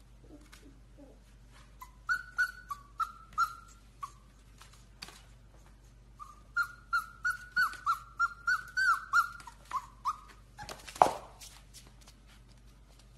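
Golden retriever puppy whining in short high-pitched cries: a run of about six starting two seconds in, then a longer run of a dozen or so from about six seconds in. A single loud thump follows near the end.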